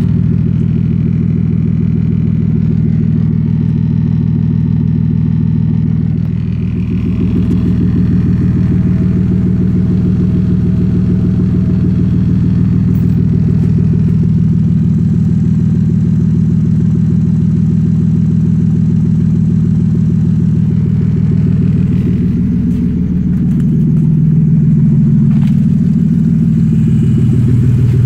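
Toyota Aristo's inline-six engine idling steadily after a cold start. About 23 seconds in its note shifts and it runs a little louder.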